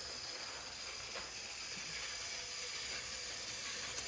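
Battery-powered toy train engines running around plastic track: a steady motor whir with faint clicks of the wheels over the track.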